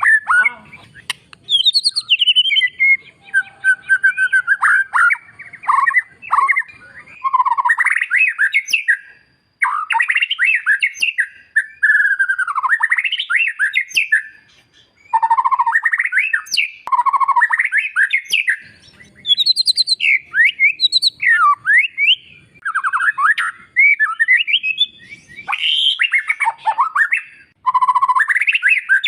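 White-rumped shama singing a loud, varied song of whistled phrases and quick rising and falling sweeps, delivered in runs with short pauses between them.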